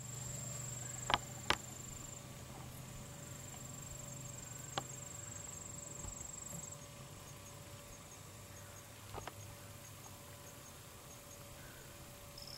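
Insects trilling in a steady, high, thin tone, and later chirping in an even pulse, with a few sharp clicks.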